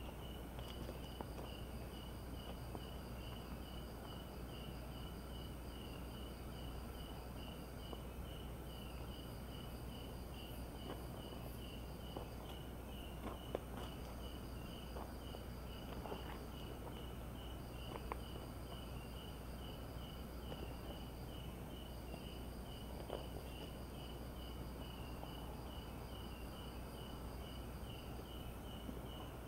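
Night insects chirping: one keeps up a steady, fast-pulsed trill while a second, higher one trills in bouts of several seconds with short breaks, over a faint steady high whine. A few faint clicks are scattered through it.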